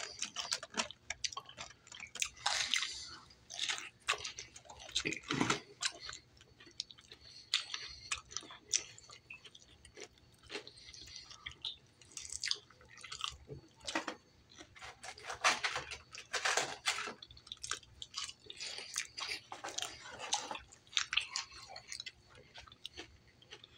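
A person chewing fried fish and french fries close to the microphone, with irregular wet mouth clicks and smacks.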